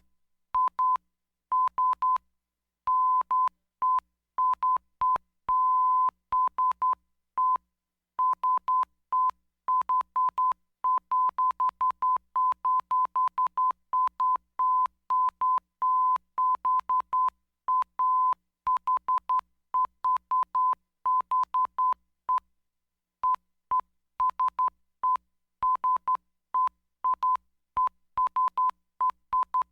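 Morse code sent as a steady tone of about 1 kHz, keyed on and off in a quick run of short dots and longer dashes with brief silent gaps between letters and words. A faint click marks the start and end of each tone.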